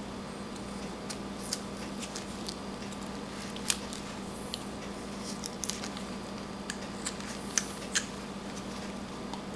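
Whittling knife cutting into a small wooden carving blank: a scatter of faint snicks and clicks as small chips come away, a few sharper ones near the middle and end, over a steady low hum.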